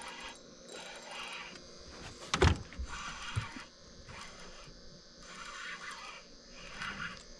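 Night chorus of insects and frogs, swelling and fading in waves about once a second, with one sharp thump about two and a half seconds in.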